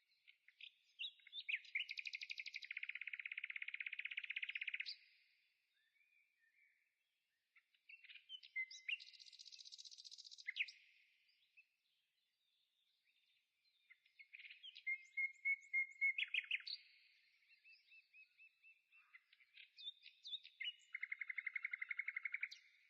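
A songbird singing in separate phrases of rapid, buzzy trills and chirps, about four phrases each a few seconds long with pauses between them.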